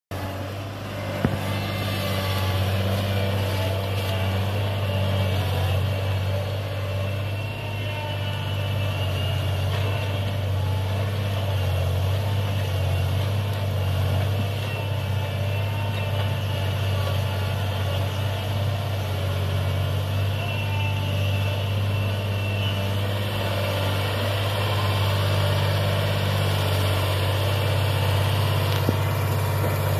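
Diesel engine of a three-wheeled sugarcane grab loader running steadily at an even pitch while it works its boom. Two brief sharp clicks, one about a second in and one near the end.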